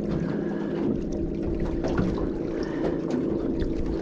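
Wind buffeting the microphone over water noise on a small fishing boat, with a steady low hum and a few light knocks.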